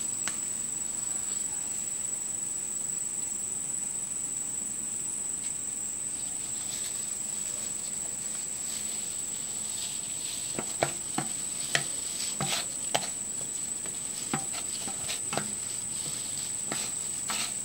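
Thick batter poured from a stainless steel bowl through a fine mesh strainer, with short metal clinks from about ten seconds in, over a steady high-pitched tone.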